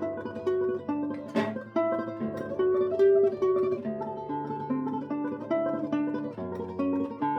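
Solo classical guitar playing a fast tremolo melody of rapidly repeated plucked notes over a slower bass line.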